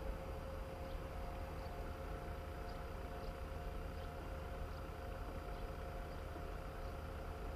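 KiHa 48 diesel railcar running toward the listener from a distance, a steady low engine rumble with a faint steady whine over it.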